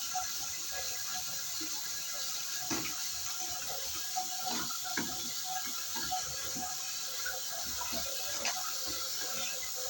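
Water running and splashing steadily, with scattered small knocks and spatters, as when a window-type air conditioner is being washed down.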